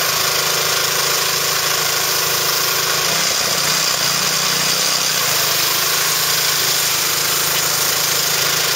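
Gas-engine pressure washer running steadily, with the hiss of its water jet spraying onto tarps.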